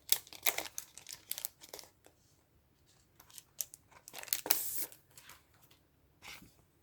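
Plastic packaging being handled and opened: irregular crinkles and rustles in several bursts, the loudest about four and a half seconds in.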